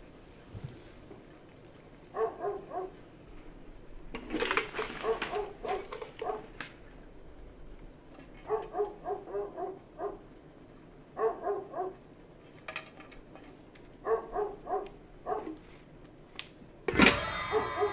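A dog barking in short runs of several quick barks, a run every few seconds, with a louder burst of noise near the end.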